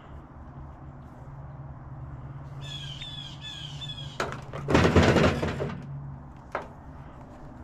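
Four short squeaky calls, each falling in pitch, about half a second apart, followed by a click and a loud rattling clatter lasting about a second, then another single click, over a steady low hum.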